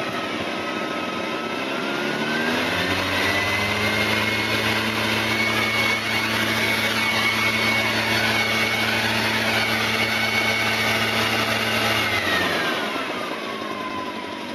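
A 44 cc backpack leaf blower's engine revs up from idle to full throttle over about three seconds with a rising whine, holds at a steady high pitch, then is throttled back down to idle near the end. At full throttle a sound level meter reads 99.6 dB.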